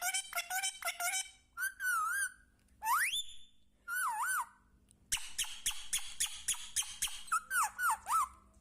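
Indian ringneck parrot calling: quick runs of sharp chattering notes broken by whistled, warbling calls, including one sharply rising whistle about three seconds in.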